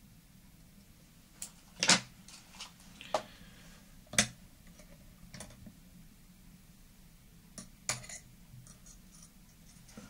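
Scattered sharp clicks and taps of fly-tying tools and materials being handled at a tying vise, about six in all, the loudest about two seconds in and again about four seconds in.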